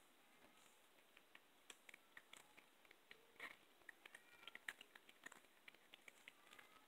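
Young blue tortoiseshell cat gnawing a raw chicken back: faint, irregular crunches and clicks of teeth on bone and cartilage.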